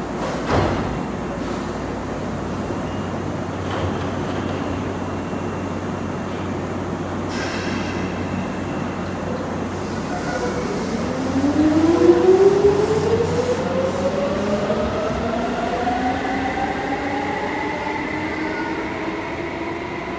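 Keisei 3400 series commuter train with field-chopper control pulling away. From about halfway through, its traction motors whine, several tones rising steadily in pitch together as it gathers speed.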